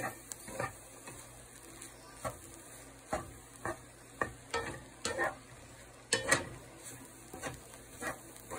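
Wooden spatula stirring and tossing chopped roti pieces in a nonstick frying pan: irregular scrapes and knocks against the pan, roughly one or two a second, over a faint sizzle of frying.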